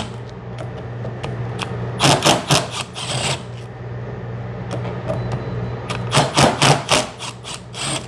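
Cordless impact driver busting screws loose from a cam phaser plate: short bursts of rapid knocks about two seconds in, again just after three, and a longer run between six and seven seconds.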